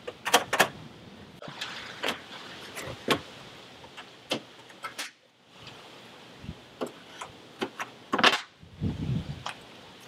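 Plastic pop clips being pushed back into the top of a Jeep Wrangler grille, with the grille being handled: a string of sharp, irregular clicks, snaps and light knocks.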